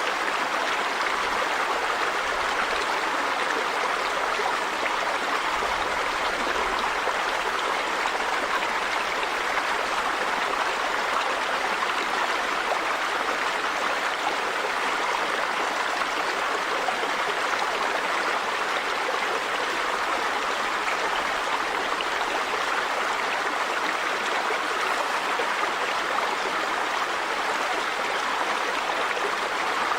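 River water running over rocks: a steady, even rush with no pauses or changes.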